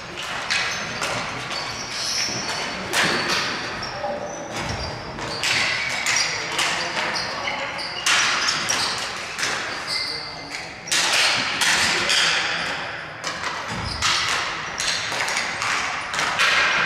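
Ball hockey play: sticks and the ball knocking and clacking at an irregular pace, with short high squeaks, likely from shoes on the floor, and players' voices calling out now and then.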